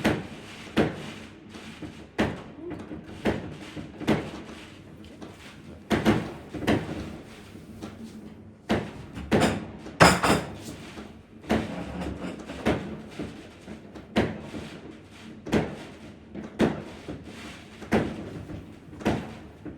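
Fireworks exploding at a distance: an irregular string of sharp bangs, roughly one a second, the loudest about ten seconds in.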